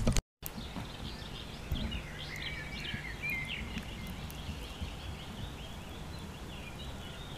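Small birds chirping and singing, busiest about two to three seconds in, over a low steady rumble.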